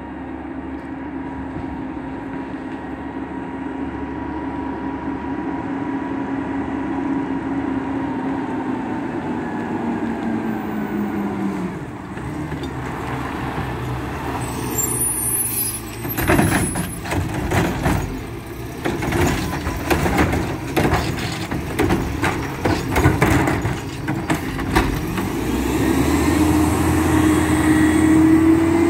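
Mack LEU garbage truck with a Heil front-loader body and Curotto-Can arm approaching. Its engine drops in pitch as the truck slows, then a long stretch of rattling and clanking comes as it draws close. Near the end the engine revs up, its pitch rising.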